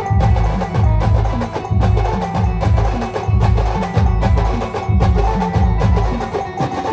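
Live band music: heavy, steadily repeating drum beat with a melody played over it.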